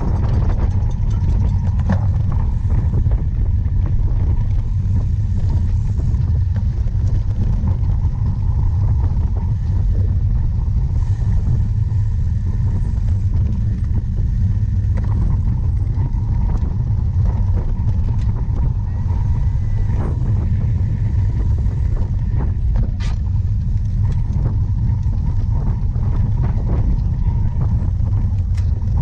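Steady low wind rumble on a helmet- or bike-mounted action camera's microphone while riding a cyclocross course, with scattered clicks and rattles from the bike.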